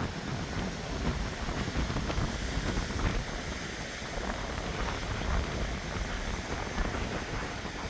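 Strong wind buffeting the microphone, a gusty low rumble, over the wash of surf breaking on the beach.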